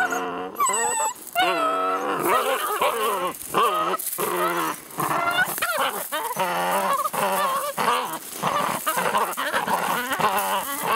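Two seven-week-old Dutch shepherd puppies growling and whining almost without a break as they tug and shake a leather bite sleeve.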